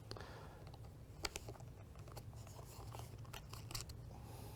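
Faint handling noises: light clicks and rustling as the rack rail bracket's plates are lined up against each other on the shield, with one sharper click about a second in.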